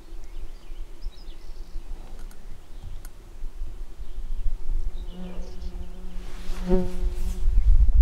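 A flying insect buzzing close to the microphone: a steady hum that is faint at first and loudest from about five to seven and a half seconds in. A low rumble builds near the end.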